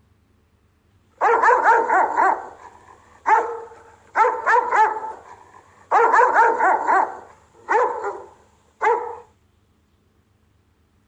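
Rottweiler giving guard barks, a warning at an intruder: six bouts of quick, repeated barks over about eight seconds, starting about a second in.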